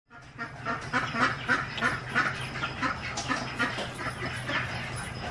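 A flock of domestic ducks quacking over and over, short calls about three a second, over a low steady hum that stops near the end.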